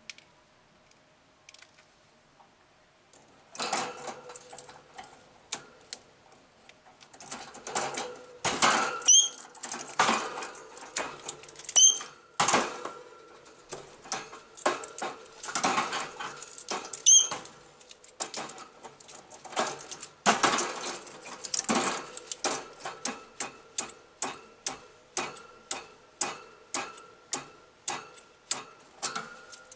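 Green-cheeked conure wrestling a pinecone on a wire cage floor: irregular clicks, knocks and rattles of the cone and beak against the metal grate, starting a few seconds in, with a few brief high squeaks.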